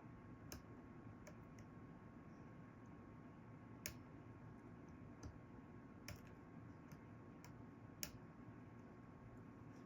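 Faint, scattered small clicks of tools working on an iPhone, about eight spread out at uneven intervals, with the loudest a little under four seconds in and about eight seconds in. A faint steady hum runs underneath.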